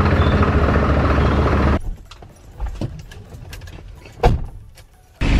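Minibus engine idling with a steady low hum, which cuts off abruptly about two seconds in. What follows is much quieter, with scattered knocks and clicks and one loud thud about four seconds in.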